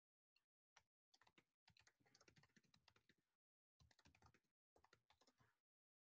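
Faint typing on a computer keyboard: several short runs of rapid key clicks with dead silence between them.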